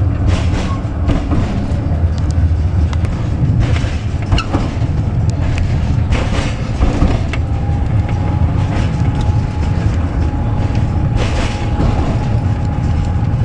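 Tram running along a single track, heard from inside the cab: a steady low rumble of wheels on rail with irregular sharp clacks over rail joints. A thin steady whine joins in about halfway through and holds.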